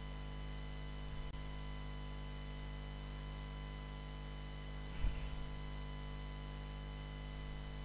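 Steady electrical mains hum from the recording setup, with a faint low thump about a second in and another about five seconds in.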